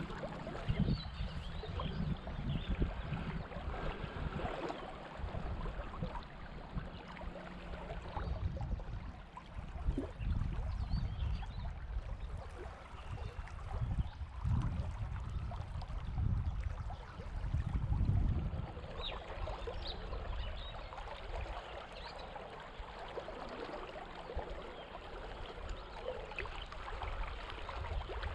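River water flowing and lapping around a small drifting boat, with an uneven low rumble that swells and fades.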